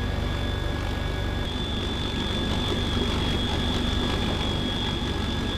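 Cabin noise of a CH-53 heavy-lift helicopter in flight: a steady din of engines and rotor, with a fast low pulsing underneath and a steady high whine over it.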